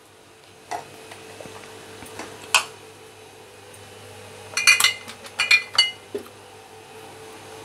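Salt being stirred into flour in a dish with a steel spoon, then fingers mixing the flour, with scattered light clicks and two quick clusters of ringing clinks against the dish about two-thirds of the way in. A faint steady hum sits underneath.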